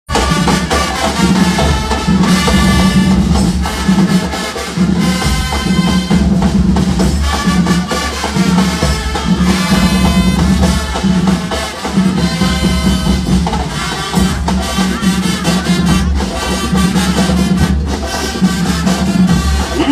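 Brazilian fanfarra marching band playing live: a brass melody over drums with a steady beat.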